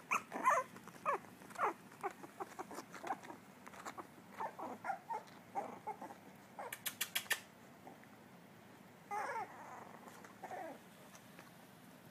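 Miniature dachshund puppies giving many short, high yips and whimpers, puppy attempts at barking, thickest in the first seven seconds with a few more later. A quick run of clicks about seven seconds in.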